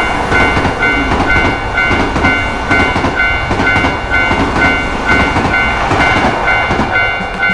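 Railroad crossing bell ringing 'kan-kan' at about two strokes a second, over a train rushing past with a rattling clatter.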